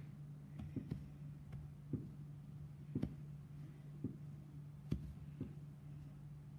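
Soft irregular knocks and rustles, roughly one a second, from a hand rubbing and poking a cat on bedding and handling the phone, over a steady low hum.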